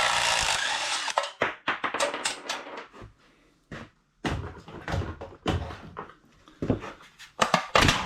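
A power tool running steadily and stopping about a second in, followed by a series of irregular metallic clicks and knocks as tools and engine parts are handled.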